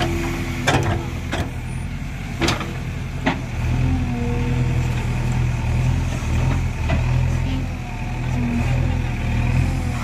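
JCB 3DX backhoe loader's diesel engine running under load while the backhoe digs, with a few sharp knocks in the first three seconds or so. The engine works harder from about three and a half seconds in.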